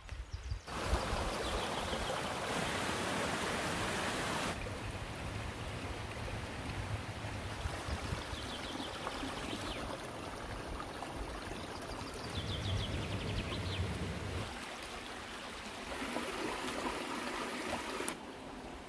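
Shallow rocky creek running over stones, a steady rush of water, loudest in the first few seconds and softer after a cut about four and a half seconds in.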